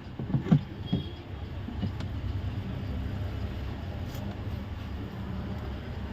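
A few light knocks and a brief high squeak as car door parts are handled, followed by a steady low rumble like a vehicle or machinery running nearby.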